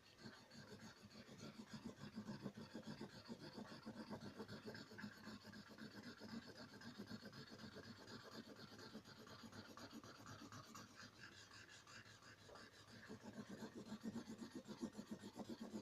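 Felt-tip marker scribbling on paper: quick, faint back-and-forth strokes as an area is coloured in.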